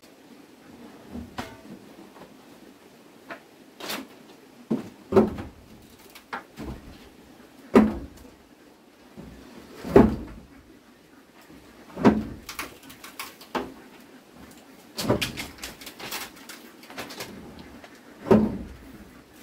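Heavy knocks struck every two seconds or so, each dull with a short ring after it, with lighter taps in between: repeated blows, of the kind made on wood during building work.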